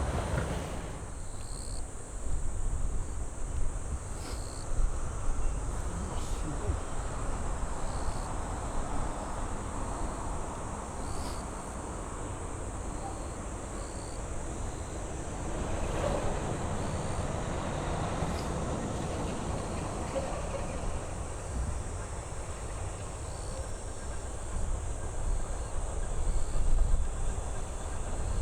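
A train running on the line with a steady low rumble that swells about halfway through and again near the end. A steady high insect drone runs underneath.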